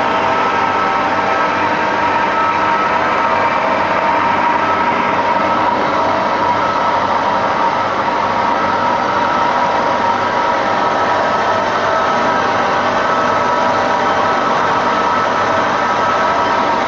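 Durma DCB 560 metal-cutting band saw running and cutting through a metal workpiece under coolant: steady loud machine noise with a few constant whining tones.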